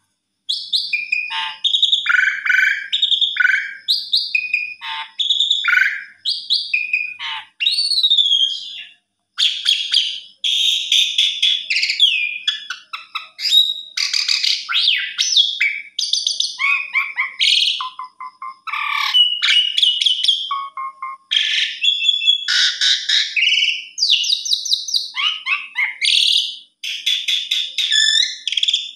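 Asian pied starling (jalak suren) singing a long, varied song of whistled glides, chattering notes and fast rattling trills, in phrases with short pauses between them.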